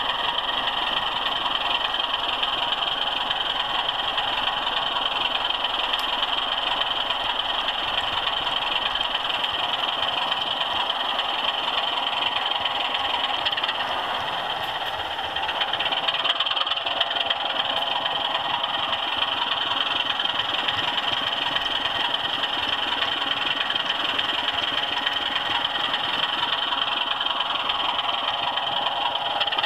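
OO scale model train running along the track, heard from a camera wagon riding in the train: a steady rolling rattle of wheels on rails with motor hum, easing briefly about halfway through.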